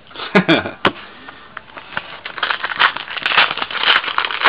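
Trading card pack wrapper crinkling and crackling as it is handled and opened, a dense run of irregular crackles building from about a second and a half in.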